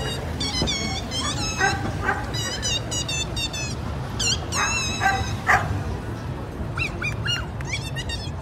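Short, very high-pitched squeaks in quick runs, bending up and down in pitch, from a clown's squeaky noisemaker, over a steady low street hum.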